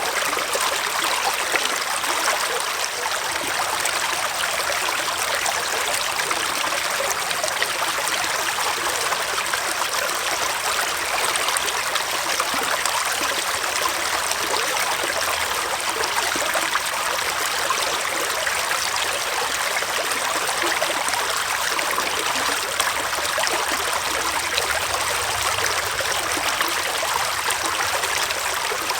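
Forest stream flowing and trickling over rocks, a steady, even rush of water.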